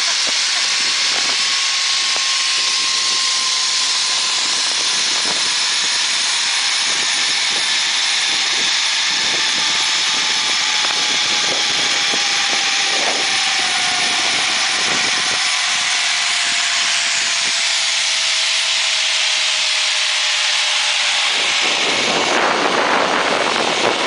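Zipline trolley running fast down a steel cable: a loud, steady rushing whir with wind on the microphone, and a thin whine that falls slowly in pitch as the ride slows. The whine stops about two seconds before the end as the rider nears the landing.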